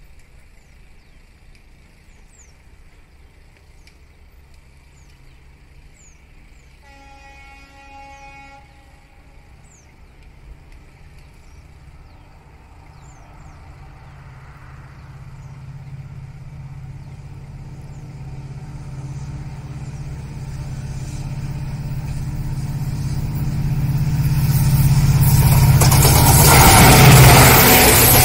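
A WDP-4D diesel locomotive with its 16-cylinder two-stroke EMD engine, hauling a passenger train, approaches from a distance. It sounds its multi-tone horn once for about two seconds, about seven seconds in. Then its low engine drone grows steadily louder, joined by rising wheel and rail noise, and peaks near the end as the locomotive and coaches pass close by. Faint bird chirps repeat during the quiet first seconds.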